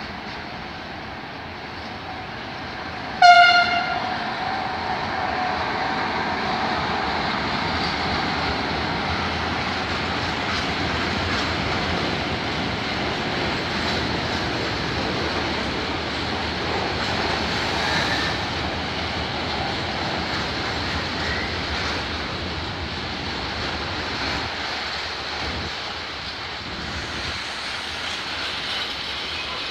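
Electric locomotive sounds one short horn blast a few seconds in. A long freight train of tank and hopper wagons then rolls past, a steady noise of wheels on the rails.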